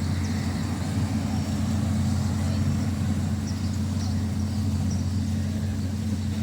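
City street traffic: a steady low engine rumble with a constant hum, unchanging throughout.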